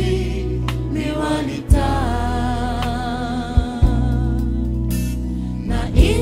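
Gospel song playing: singing over a band accompaniment with a steady bass line and a few sharp drum hits.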